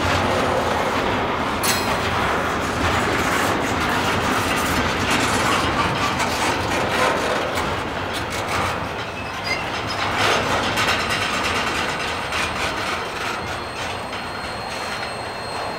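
Double-stack intermodal well cars rolling slowly past, with steel wheels clacking over the rails and crossing and occasional sharp clanks. The rolling sound eases off after the last car goes by, about ten seconds in.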